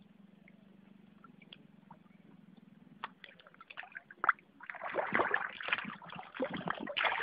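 A hooked rohu thrashing at the water's surface, splashing and sloshing in irregular bursts. It is faint for the first few seconds, then a sharp click, and the splashing gets much louder over the last three seconds.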